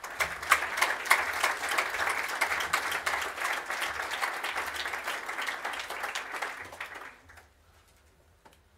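Audience applauding, the clapping starting at once and dying away about seven seconds in.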